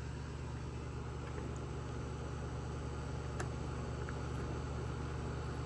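Steady low background hum, with a single faint click about three and a half seconds in.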